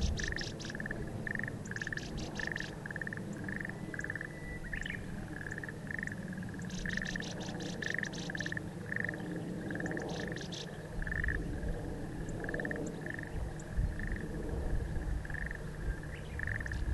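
Wild animal calls over a marsh: a short, buzzy mid-pitched call repeats about twice a second throughout, broken by four brief bursts of fast, high ticking notes, over a low rumble.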